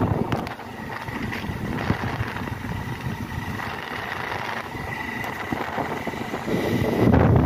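Motorcycle engine running while riding along a road, with wind rushing on the microphone; the wind noise swells louder near the end.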